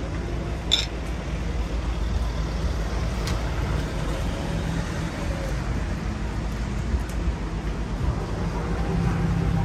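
City street ambience: a steady low rumble of road traffic, with a sharp click a little under a second in and a couple of fainter clicks later.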